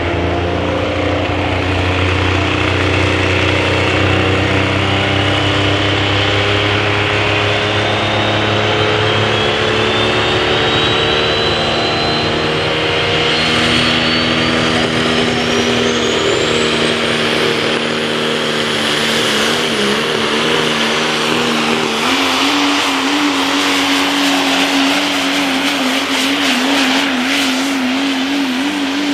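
Scheid Diesel Super Stock diesel pulling truck's engine under full load, with the turbocharger's whine climbing slowly and steadily in pitch as it spools up. About three-quarters of the way through, a wavering, warbling tone takes over the engine note, and the sound cuts off sharply at the end.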